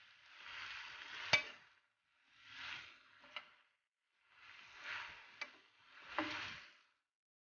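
A cooking utensil stirring and turning vegetables and meat in a nonstick frying pan, in four separate scraping strokes about a second long. Most strokes end in a sharp clink of the utensil against the pan, the loudest about a second and a half in.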